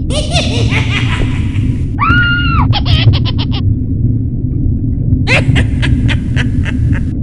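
Cackling, chittering monster calls in bursts: a dense run at the start, a short held cry that rises and falls about two seconds in, then rapid stuttering pulses, and another stuttering run near the end. A steady low rumbling drone runs underneath.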